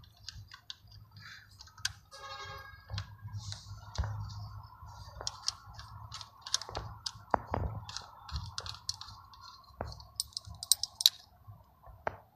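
Small metallic clicks and taps of brass fittings being handled: a nitrogen charging hose's adapter worked onto the charging valve and gauge on a hydraulic breaker's nitrogen chamber. The clicks come irregularly, several close together shortly before the end.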